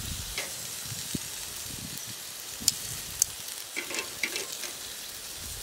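Chicken thighs sizzling as they are laid skin side down on the hot grate of a Weber charcoal kettle grill over ashed-over coals, a steady hiss with a few sharp clicks and pops, two of them loud near the middle.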